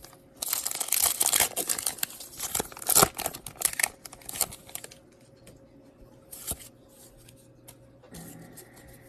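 Foil wrapper of a Pokémon trading card booster pack torn open and crinkled, with dense crackling for a few seconds, then quieter rustling and a few light clicks as the cards are handled.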